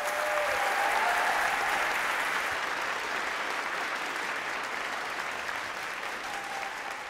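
Large audience applauding steadily; the clapping swells in the first second, then slowly tapers off.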